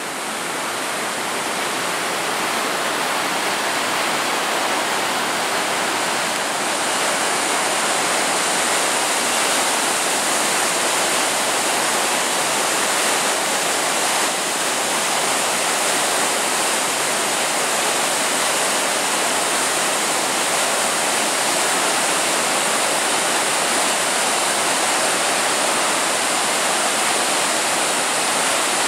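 The flood-swollen Nysa Kłodzka river pouring over a weir after heavy rain: a loud, steady rush of churning white water.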